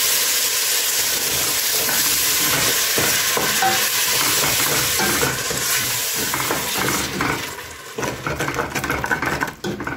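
Blended tomatoes sizzling in a hot stainless steel pot of fried onions and beef while a wooden spoon stirs them. The sizzle dies down after about seven seconds, leaving the spoon scraping and knocking against the pot.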